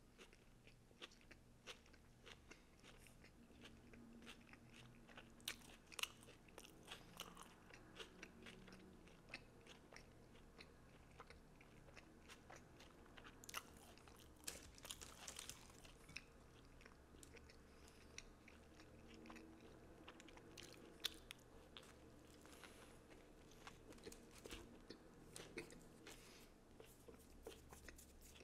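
Faint, close-miked chewing of a mouthful of sandwich with raw vegetables: many irregular wet mouth clicks and soft crunches.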